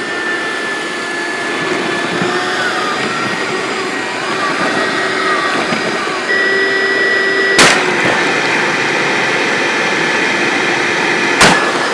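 Hoover SteamVac Ultra carpet cleaner's motor running with a steady whine, stepping up in pitch and loudness about six seconds in. Two sharp knocks cut through it, a little past halfway and near the end.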